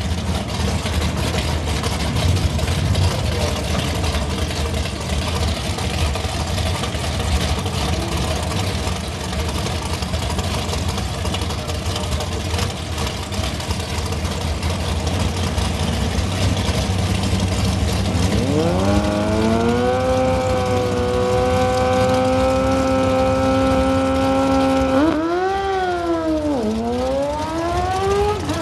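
Drag-racing doorslammer engines running loudly at the starting line. About eighteen seconds in, one engine is brought up to a steady high rpm and held there. Near the end it is revved sharply up and down and then climbs again, as the cars stage for the launch.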